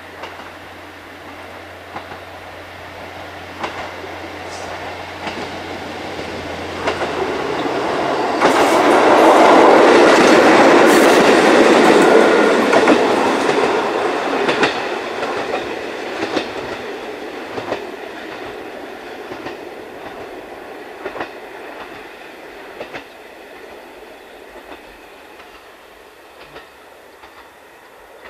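KiHa 40 diesel railcar running along single track, its diesel engine and wheels growing louder to a peak about ten seconds in, then slowly fading as it moves away. Its wheels click over the rail joints.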